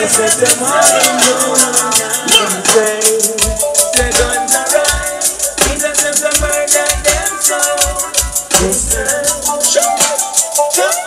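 Music with a quick, steady shaker or hi-hat pattern and a melody line; deep bass notes come in about three and a half seconds in and drop out near nine seconds.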